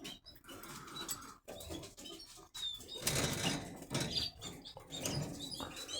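Canaries in their breeding cages: a few faint, short high chirps over soft rustling and movement.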